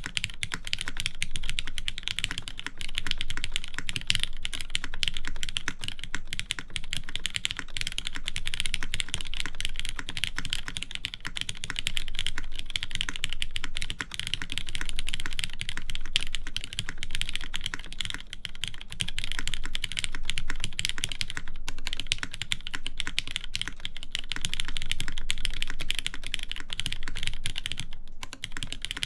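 Continuous fast typing on a TGR Jane v1.5 mechanical keyboard with lubed Cherry MX Black linear switches on a half FR4 plate: a dense run of keystroke clacks with a brief pause near the end.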